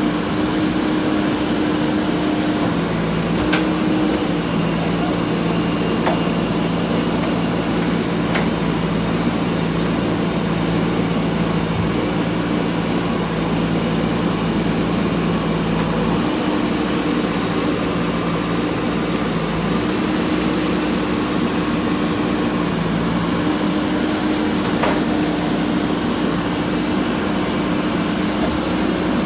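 JCB 3DX backhoe loader's diesel engine running steadily under working load, its note shifting slightly a few times as the hydraulics take up the work, with a few faint clicks.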